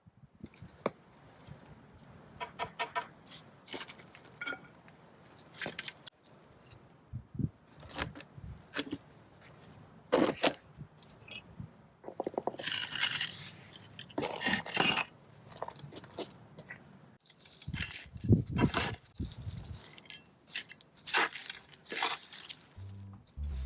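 Close-up crunchy rustling, scraping and tapping of hands handling things, in irregular bursts with sharp clicks between them.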